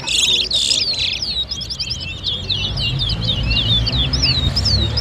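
Caged towa-towa finches singing fast, twittering phrases of quick sweeping chirps, one bird's notes overlapping the other's, as they compete in a singing race. A low rumble of background noise sits underneath.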